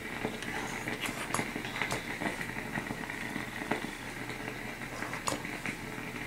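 Facial steamer running with a steady hiss, with a few light clicks and taps as the foam face wash bottle and face brush are handled.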